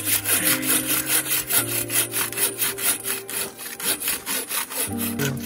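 Bow saw cutting through a dead log with quick, short push-pull strokes, an even rasping at about five strokes a second; the blade is not drawn through its whole length.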